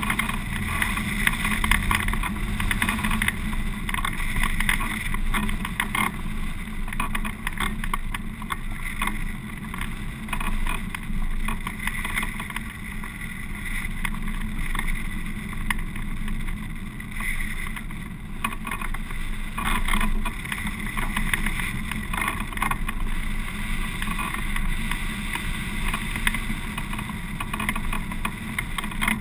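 Wind rushing over a hang glider's camera microphone in flight: a steady rush of air with gusty buffeting that rises and falls from moment to moment.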